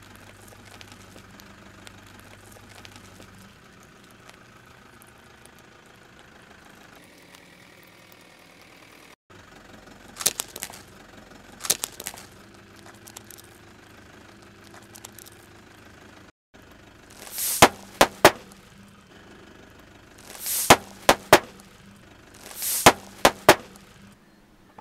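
A car tyre rolling slowly over small objects on asphalt, with a steady low hum under it. Sharp cracks come about ten seconds in as a small plastic item is crushed. Near the end come three loud groups of pops as plastic bags filled with pink paste burst under the tyre.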